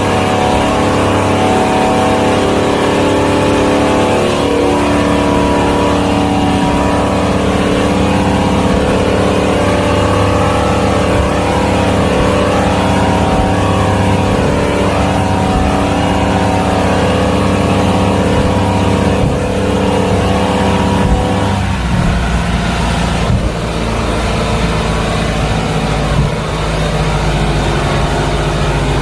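Maxum motorboat's engine running steadily under way, with a steady rush of noise over it. About 22 seconds in the engine note changes and drops lower.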